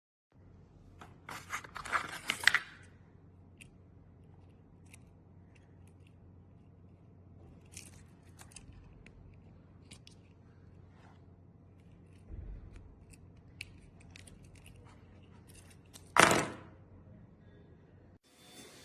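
Handling of a small Victorinox Classic Swiss Army knife: small clicks, scrapes and snips from its blade, tools and scissors being worked. A louder short rasp comes near the end.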